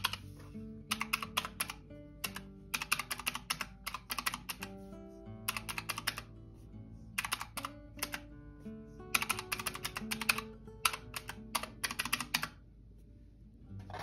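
Rapid key presses on a calculator with round typewriter-style keys, clicking in quick runs with short pauses between, as figures are added up; the clicking stops near the end. Soft background music with sustained notes runs underneath.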